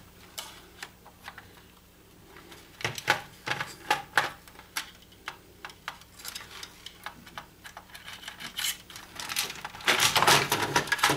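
Plastic and metal parts of a projector being handled and worked with a screwdriver during teardown: scattered sharp clicks and knocks, coming in clusters, with the busiest and loudest run of clicking near the end.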